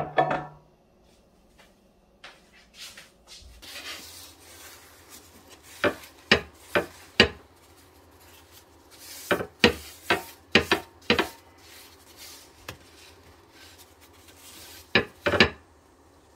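Paper towel rubbing over a ceramic-coated grill plate, wiping off grease. The rubbing is broken by several sharp clacks of the plate and a knock at the start.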